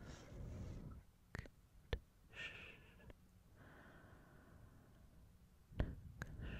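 Soft breathy exhales, sigh-like, from an ASMR performer, broken by a few sharp mouth clicks: two in the middle and two near the end.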